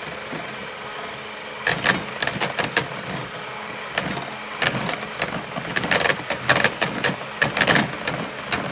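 Electric hand mixer's motor running steadily, its beaters whipping soap and water into foam in a plastic bowl. From just under two seconds in, irregular sharp clicks and clatters come and go as the beaters knock against the bowl.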